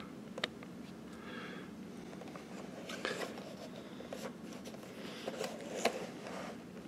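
Faint handling noise from a boxed action figure in a clear plastic protective case being turned over in the hands: light rubbing and scraping of the plastic, with a few small clicks.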